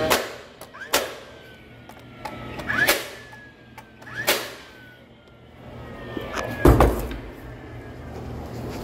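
Cordless DeWalt nailer shooting nails into a wooden door jamb to fix it over the shims: about five sharp shots a second or two apart. Several are followed by a thin whine that falls away over a second or so. The loudest, heaviest knock comes a couple of seconds before the end.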